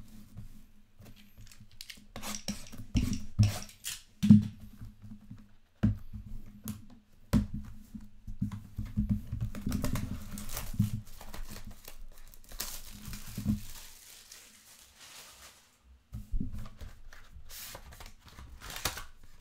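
Plastic shrink wrap being torn and crinkled off a sealed cardboard box of trading cards, with scattered clicks, scrapes and knocks of the cardboard being handled. A longer crinkling stretch comes about two-thirds of the way through.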